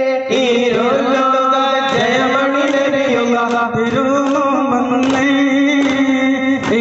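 Duff muttu: men's voices chanting a devotional song on a held melody, with sharp strikes on duff frame drums about once a second.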